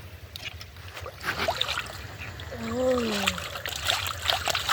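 Water splashing and dripping in quick, irregular bursts as hands work through shallow water to catch fish. About three seconds in there is a short rising-and-falling voiced sound.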